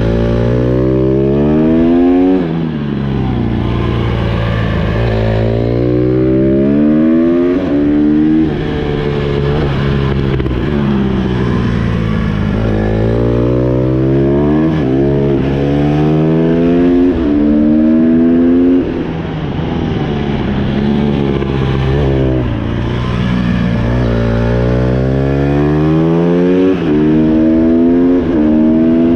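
Honda CRF150R's four-stroke single-cylinder engine revving under hard acceleration. It rises in pitch several times and falls back each time the throttle closes.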